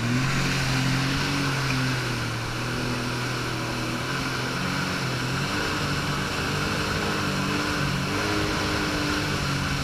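Jet ski engine running at speed while towing a tube, its pitch shifting slightly about halfway through, over a steady rush of spray and wind.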